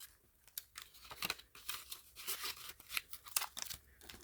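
Paper banknotes rustling as cash is handled and counted: a run of short, irregular rustles.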